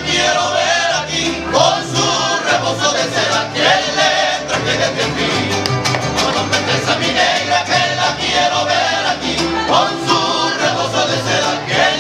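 Mariachi band playing live: violins and guitars over a steady bass line, with a voice singing the melody.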